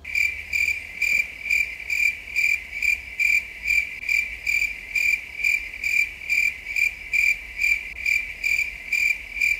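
Crickets chirping, a high chirp repeating about twice a second that cuts off suddenly. This is the edited-in 'crickets' sound effect marking an awkward silence.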